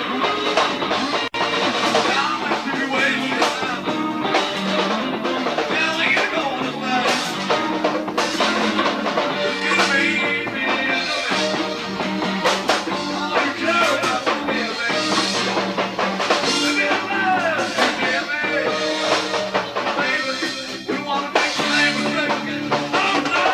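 Live band playing a rock number on electric guitar, bass guitar, drum kit and bongos, with a brief dropout in the sound just over a second in.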